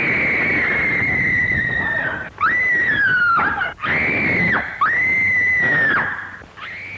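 A person screaming five times from offstage: one long cry, then four shorter ones, some falling in pitch, the last one fainter near the end.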